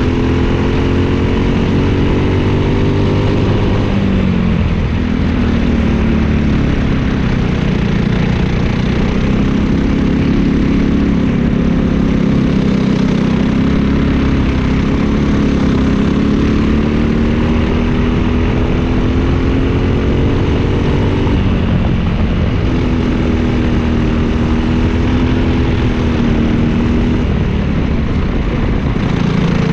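Briggs & Stratton LO206 single-cylinder four-stroke kart engine, heard onboard at racing speed. Its pitch climbs along the straights and drops sharply off the throttle into the corners, several times.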